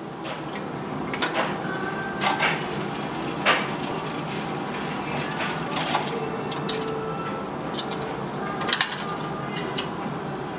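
Jukebox record-changer mechanism working: scattered clicks and clunks over a steady whir as a record is taken from the stack and set on the turntable, ready to play.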